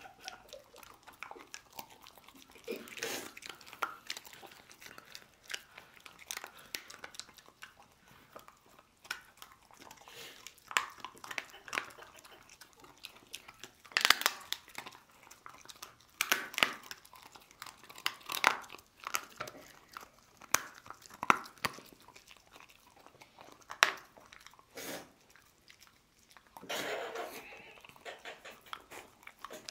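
A dog chewing and crunching a dried kangaroo rib, sharp irregular cracks of the bone a few seconds apart between quieter gnawing.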